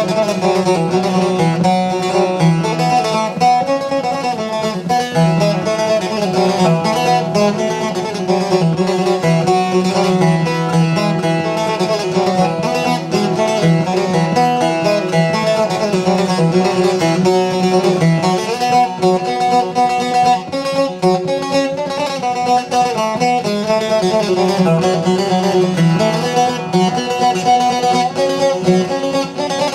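Instrumental background music led by plucked strings, with a steady beat.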